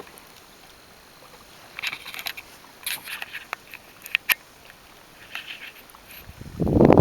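Water dripping and lightly splashing around a kayak paddle: scattered small drips and taps. Near the end a much louder low rushing noise sets in.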